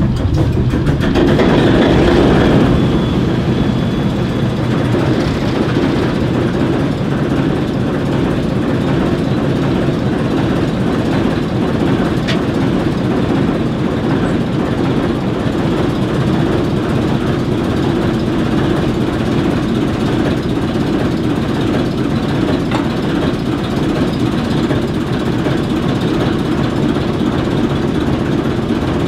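ALCO switcher locomotive's six-cylinder turbocharged 539 diesel idling steadily, swelling briefly louder a second or two in.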